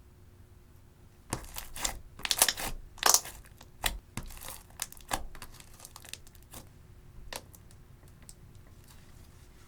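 Clear slime mixed with eyeshadow being squeezed and stretched by hand, giving a dense run of crackling pops and clicks that starts about a second in and thins out to scattered clicks after about five seconds.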